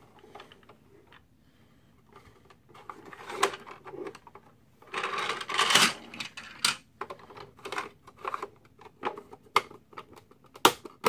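Plastic parts of a Transformers MP-10 Optimus Prime toy trailer being handled: scattered clicks and rattles, with a longer scraping stretch about halfway through as the rear loading ramp is pulled out. More clicks follow near the end as the rear doors are pushed shut.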